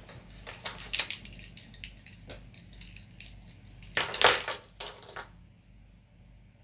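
Two bursts of clicking and clattering, about a second in and again about four seconds in, the second louder.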